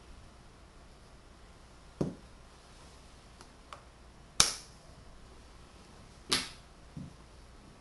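Tegu magnetic wooden building blocks clacking together as they are set in place. There are a few separate sharp clacks, the loudest about four and a half seconds in and another a couple of seconds later, with duller knocks and faint ticks between them.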